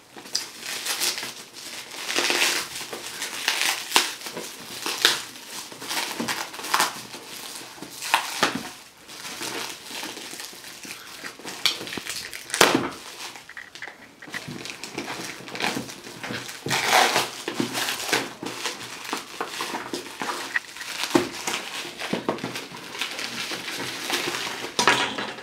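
Black plastic parcel wrapping being torn open and pulled off a box by hand: continual crinkling and ripping with many irregular sharp crackles.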